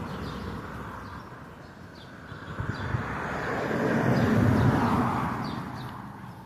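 A vehicle driving past, its rumble and road noise swelling to a peak about four to five seconds in and then fading, with faint bird chirps.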